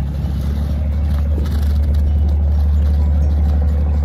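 An engine idling, a steady low hum.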